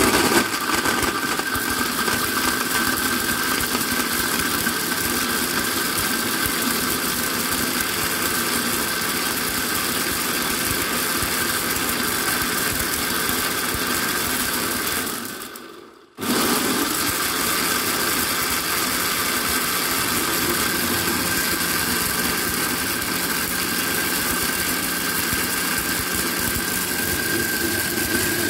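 Countertop blender running at full speed with a steady whine, blending frozen pomegranate seeds and ice into juice. About halfway through, the motor winds down to a stop and is switched straight back on.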